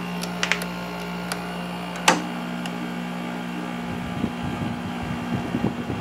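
5,000 BTU Kool King window air conditioner running on low fan with its compressor freshly started, a steady hum, with two sharp clicks early on. From about four seconds in, air from the vent buffets the microphone as a hand moves up to the grille.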